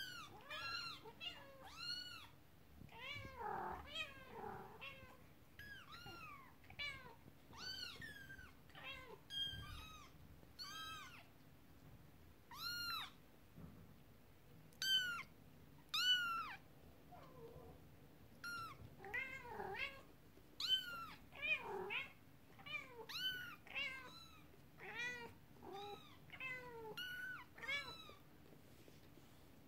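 Young kittens meowing over and over: short, high-pitched, arching mews, one or two a second, with a few lower, fuller calls mixed in.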